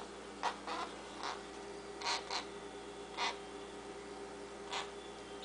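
Baby Indian ringneck parakeet giving short begging calls while being hand-fed, about seven of them at uneven intervals.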